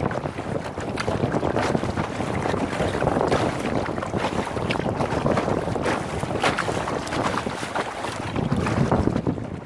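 Wind buffeting the microphone over water splashing and sloshing around a kayak as it is paddled.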